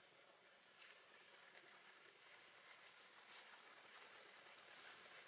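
Faint insect chirping: a steady high-pitched trill that pulses in short runs, with a couple of faint clicks.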